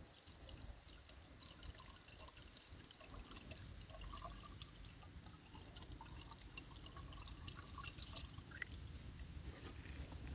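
Engine coolant being poured into a car's radiator reservoir: a faint trickle with small drips and splashes.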